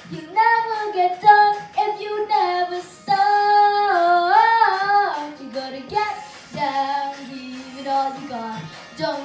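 A boy sings through a handheld microphone over a backing track with a beat. A few seconds in he holds a long note, then bends it in a wavering run.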